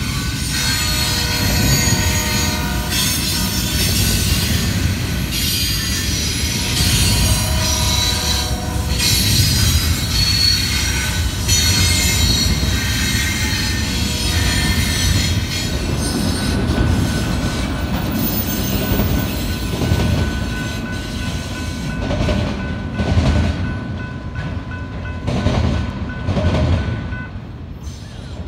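BNSF freight train of double-stack container cars and autoracks rolling past, its wheels squealing in a set of high ringing tones. One steady squeal tone holds on. Near the end a run of rhythmic wheel clacks comes through as the cars roll over the track.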